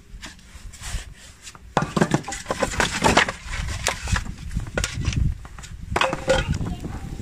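Wooden boards being pulled from a snow-covered stack of scrap lumber: dry wood scraping and knocking against wood. The knocks start about two seconds in and come in a quick run, with another clatter near the end.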